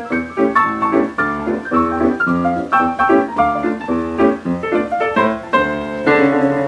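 Jazz piano from a 1941 78 rpm record, playing a quick run of struck notes and chords at about three a second. Near the end it settles on a held chord.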